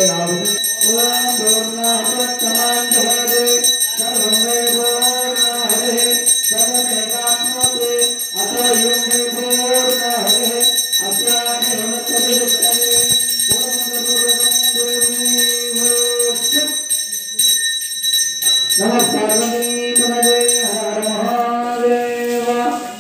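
Devotional singing by a group, in repeated phrases a second or two long with a short break about three-quarters of the way through, over a steady thin high tone.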